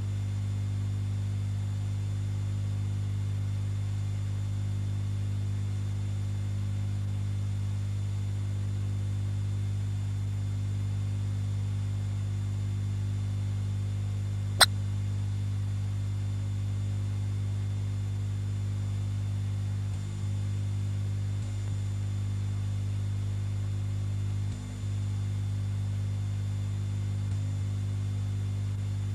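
Steady electrical mains hum, a low buzz with a faint thin high whine above it. There is one sharp click about halfway through, and the hum briefly drops out twice later on.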